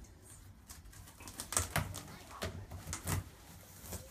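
Fingers scratching at the packing tape and tearing open the flaps of a cardboard box: a series of short, irregular scratchy rasps and clicks, busiest in the second half.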